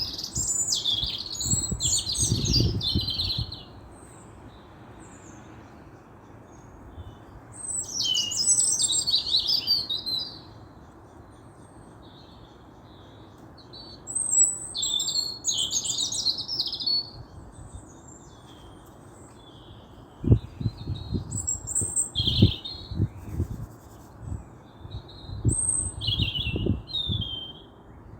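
A songbird singing in short, high twittering phrases every few seconds over a steady hiss of background noise. Loud low thumps come in the first three seconds and again through the last third.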